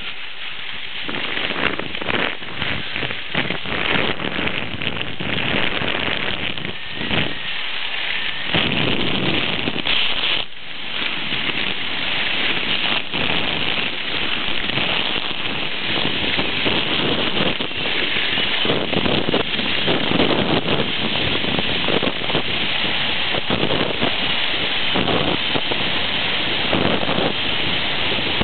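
Skis scraping over hard-packed snow during a downhill run: a continuous rough noise with irregular swells, with wind on the microphone.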